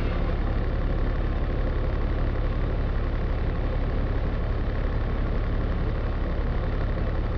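Truck engine running steadily, heard from inside the cab as a low, even drone that does not rise or fall.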